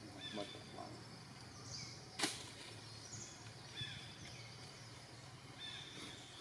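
Quiet forest ambience with scattered short, high chirps, and one sharp click about two seconds in.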